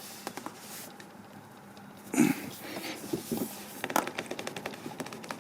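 Hand tool working a screw out of a car tire's tread: a short knock about two seconds in, then a quick run of light clicks.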